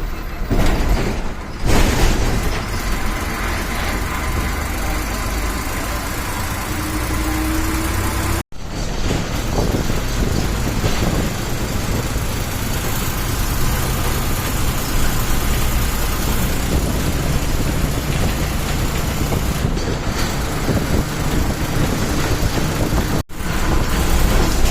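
Bus engine and road noise heard from inside a moving bus, a steady low rumble with hiss. It cuts out abruptly for an instant twice.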